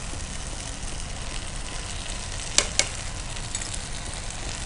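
Foxtail millet tomato bath sizzling steadily in a nonstick pan on a gas stove as ghee is spooned in. Two sharp clicks come close together about halfway through.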